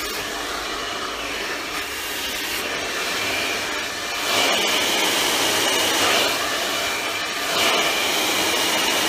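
Hand-held hair dryer running steadily while blow-drying hair over a round brush, a continuous rushing air noise. It grows louder with a steady high whine about four seconds in, dips briefly, then comes back up as the nozzle moves toward and away from the microphone.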